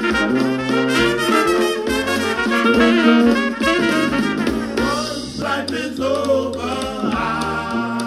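Background music: an upbeat song with a singing voice and brass instruments.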